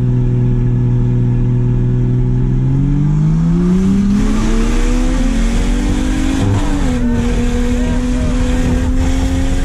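Car engine under way, holding a steady note for about three seconds, then accelerating hard with its pitch rising. About six and a half seconds in the pitch drops briefly, as with an upshift, and then it keeps climbing.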